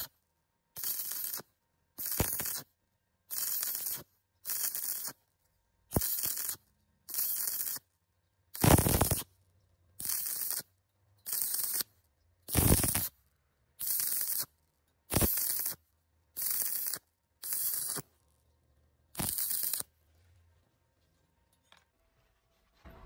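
Stick-welding arc on thin square steel tube, crackling in short bursts about once a second as the arc is struck and broken again and again, a stitch technique that keeps the heat down so the thin wall doesn't burn through. The bursts stop near the end.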